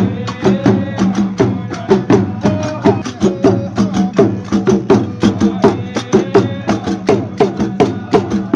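Qarqabu (iron castanets) clattering in a fast, steady rhythm together with hand-beaten frame drums, with men's voices singing along: Algerian Saharan folk percussion music.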